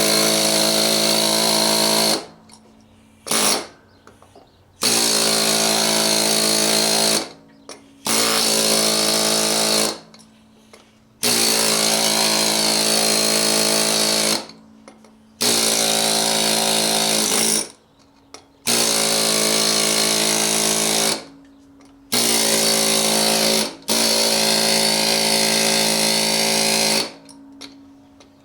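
Pneumatic air hammer fitted with a flat chisel, run in bursts of two to three seconds with short pauses, about nine times, as it breaks the bead of a mower tire off the rim.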